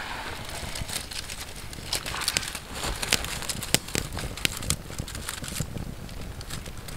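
Small feather-stick fire crackling and popping, with the rustle and crackle of a bundle of thin dry twigs being laid over the flames. The sharp clicks are busiest about two to five seconds in.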